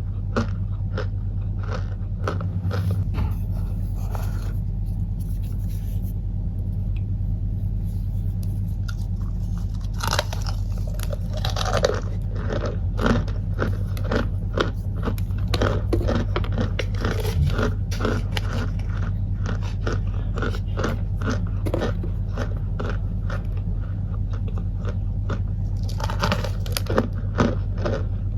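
Kay Nay starch being crunched: a dense, continuous run of short crisp crunches, over a steady low hum.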